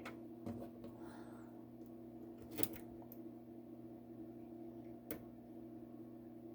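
Single pin pick (short hook) working the pins inside a Master Lock No. 532 padlock: a few scattered sharp metallic clicks, the loudest about two and a half seconds in and another about five seconds in, over a steady low hum.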